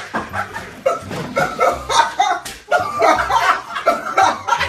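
Several young men laughing hard and loudly in bursts, with a few sharp smacks among the laughs.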